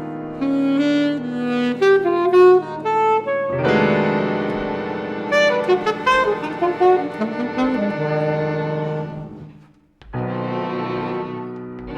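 Jazz chamber ensemble music: an alto saxophone melody over piano, with the fuller ensemble of brass and strings coming in about three and a half seconds in. The music dies away to a brief silence near the end, then a held chord enters.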